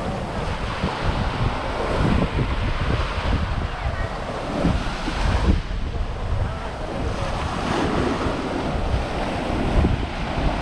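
Sea surf washing onto a beach, with wind buffeting the microphone in low, uneven gusts.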